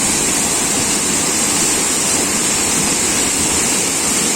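Waterfall crashing into its pool, a loud, steady rush of falling water.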